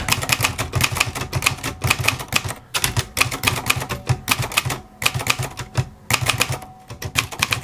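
Typing on a Royal Mercury ultra-portable manual typewriter: a fast run of sharp keystroke clacks, several a second, as the typebars strike the platen, with a few brief pauses.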